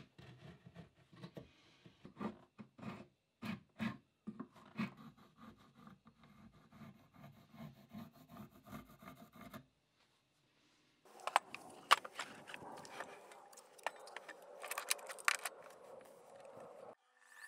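Small knocks, scrapes and pencil scratching as a wooden piece is handled and marked on a wooden slab. After a short break, sharper clicks and rattles of a log being set and clamped on a mitre saw, over a steady hiss.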